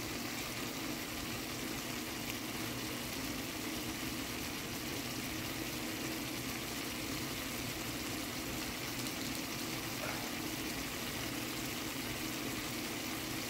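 Steady hiss of a skillet of red potatoes, carrots and onions simmering in seasoned liquid on the stove, with a steady low hum underneath.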